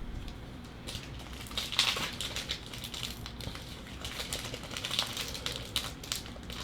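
Sealed trading-card pack wrapper being crinkled and pried at by hand, irregular crackling and crumpling as the old, stubborn pack resists opening.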